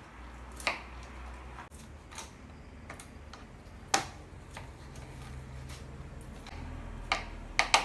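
Knife knocking and clicking against a cutting board while trimming a half-thawed frozen tuna, a few scattered strikes with a quick cluster near the end.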